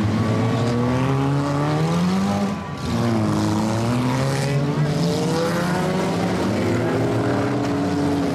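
Demolition derby cars' engines revving hard, the pitch climbing as they accelerate, falling away briefly about two and a half seconds in, then rising again and holding high.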